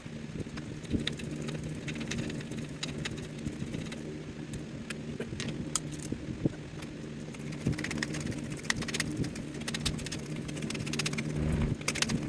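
Scattered light metallic clicks and clinks of parts and hand tools being handled during a front hub installation, over a steady low mechanical hum; the clicks come thicker in the second half and near the end.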